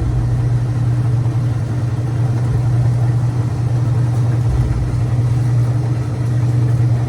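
GE washer's drain pump (WH23X24178) humming steadily on the drain cycle without pumping water: the pump has failed.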